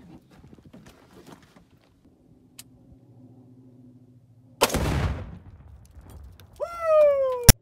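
A single AR-15 rifle shot setting off a two-pound tannerite exploding target, a little past halfway: one sharp blast with an echoing tail of about a second. Near the end a loud whistling tone with overtones rises briefly, slides down in pitch and cuts off abruptly.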